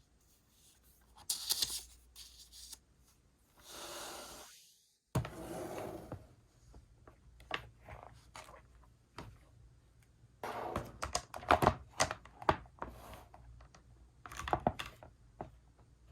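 Close-up paper and stationery handling: rustling and crinkling of paper with a series of small clicks and taps, clustering most densely in the second half.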